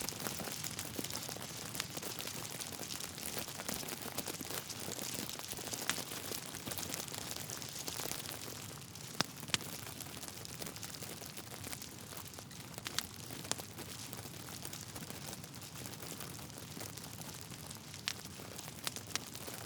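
Wood fire burning in a fireplace: a steady crackle of burning logs with scattered sharp pops, a few louder ones about halfway through and near the end.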